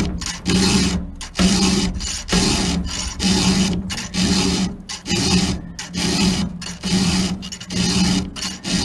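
A round file rasping across the cutter teeth of a McCulloch chainsaw chain, sharpening it by hand. The strokes come in a steady rhythm of about one a second.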